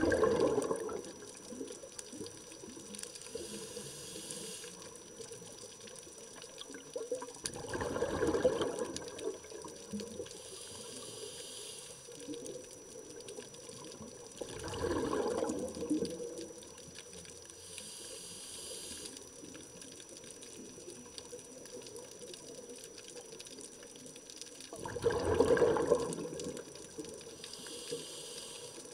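Scuba diver breathing through a regulator: a quiet hiss on each inhale, and a louder burst of bubbling exhaust on each exhale, four breaths several seconds apart.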